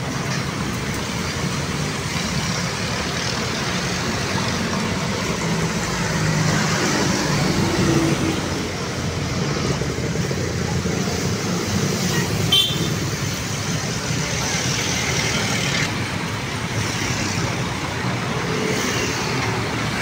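Busy city street traffic: cars and motorcycles running past, a steady mix of engine and tyre noise. A short horn toot sounds about twelve seconds in.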